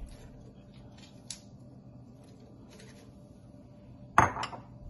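Soft handling rustles as spinach leaves are dropped into a glass blender jar, then a sharp double knock about four seconds in as a dish is handled on the granite countertop.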